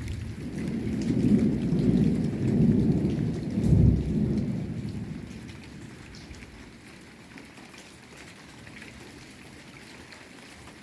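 Rolling thunder from a violent thunderstorm: a long low rumble with several loud peaks over the first five seconds that then fades away, over steady rain.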